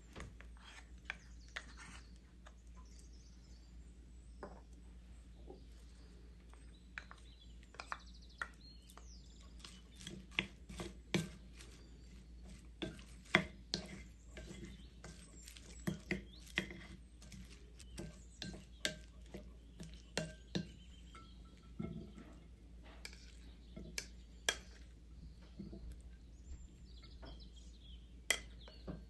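Wooden spoon and spatula knocking and clinking against a ceramic salad bowl and a small glass bowl as dressing is spooned in and the salad is tossed and scooped onto a plate. The light knocks come a few at a time at first and grow frequent from about a third of the way in.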